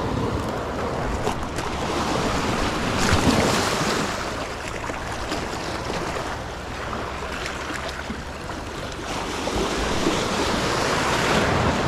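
Sea waves washing in over shoreline rocks, the surf swelling about three seconds in and again near the end.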